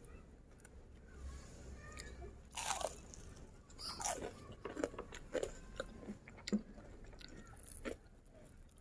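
Crunchy biting and chewing: irregular crackling crunches, loudest a little under three seconds in and again around four to six and a half seconds in.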